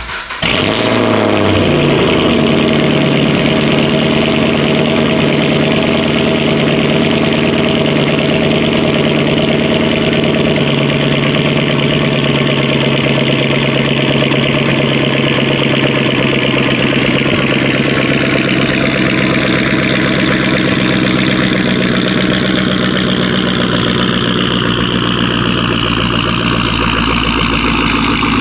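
Fifth-generation Chevrolet Camaro cold start: the engine catches about half a second in with a flare that settles within a couple of seconds into a loud, steady fast idle. The idle pitch slowly drops over the last ten seconds as it begins to come down.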